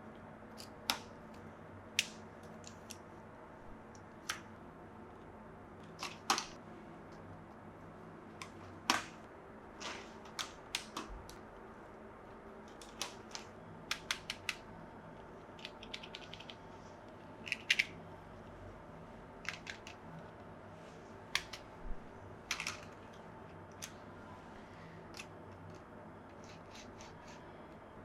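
Light, irregular clicks and taps of hands handling small plastic items, the model train cars and their plastic packaging, a few clicks a second at times with pauses between.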